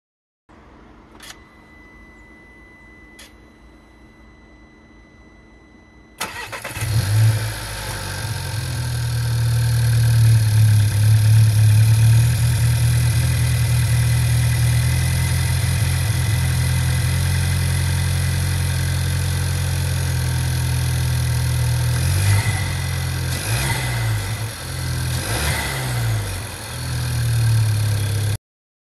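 Volkswagen 1.5 TSI EA211 four-cylinder turbo petrol engine starting on its first run after a swap to APR ignition coils and new spark plugs. Two faint clicks come first; about six seconds in it cranks and catches, then settles into a steady idle, with a few short rises and falls in engine speed near the end before the sound cuts off.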